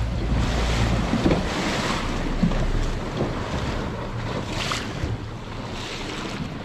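Wind rushing over the microphone and sea water washing against a small boat's hull, with a low rumble that drops away about a second in.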